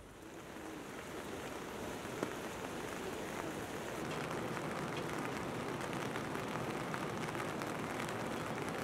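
Steady rain falling, with scattered drops ticking off a corrugated roof edge.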